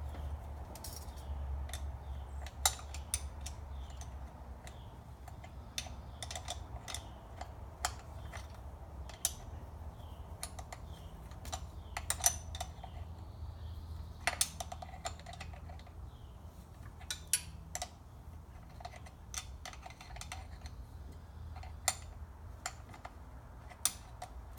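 Scattered metallic clicks and clinks of a hand wrench working the thermostat housing bolts, coming irregularly about once a second, over a steady low hum.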